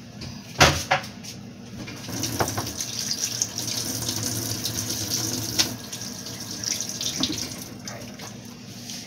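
A sharp knock about half a second in, then a kitchen tap running for about five seconds before it stops.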